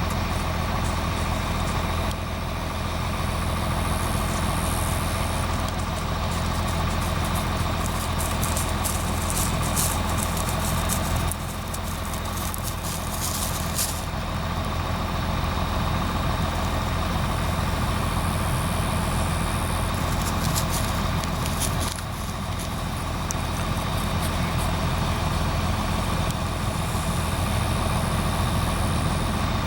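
John Deere 9400 combine running steadily, a continuous diesel engine and machinery hum. It is joined by spells of light clicking and rattling about a third of the way in and again about two-thirds through.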